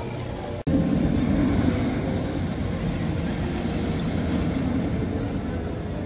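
Velocicoaster's steel roller coaster train running along its track: a steady low rumble that comes in suddenly about half a second in and is loudest just after.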